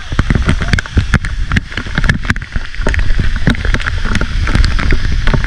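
Waterfall water pouring down and striking the camera and its microphone at close range. It sounds as a loud, irregular patter of hits over a heavy low rumble.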